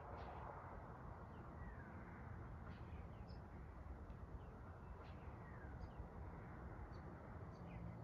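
Birds chirping faintly outdoors, with short high chirps and a few brief falling whistles scattered through, over a steady low background rumble.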